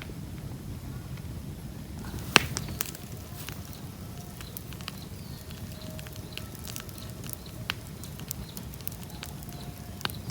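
Campfire crackling, with irregular sharp pops and snaps, the loudest crack about two seconds in, over a steady low rumble.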